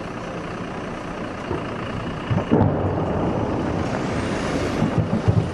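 Vans driving past close by: engine and tyre noise, with louder low rumbles about two and a half and again about five seconds in.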